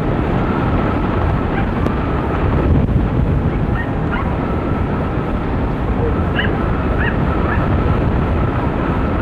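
Wind rushing over the microphone of a camera on a hang glider in flight, a steady loud buffeting, with a few faint short high chirps or yelps over it.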